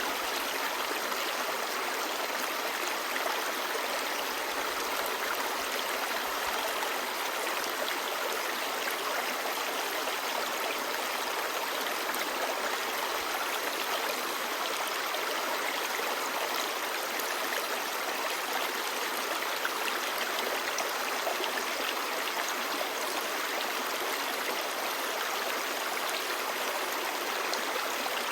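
Clear mountain stream babbling over rocks, a steady rushing and gurgling of shallow water.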